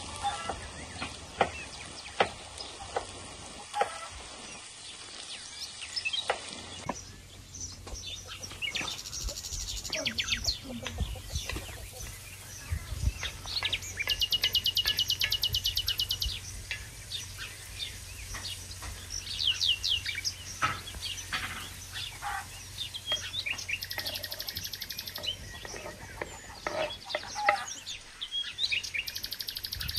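Songbirds chirping and trilling, over a knife chopping on a wooden board for the first several seconds, then food frying in a wide shallow pan with a spatula stirring and scraping.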